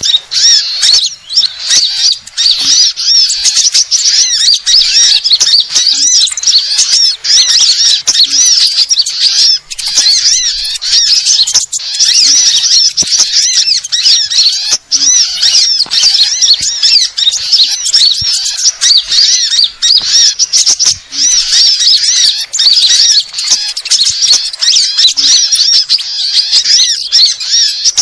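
Bird-lure recording of small songbirds mixed together, a dense, loud, unbroken twittering of quick high chirps and trills, made to draw wild small birds in.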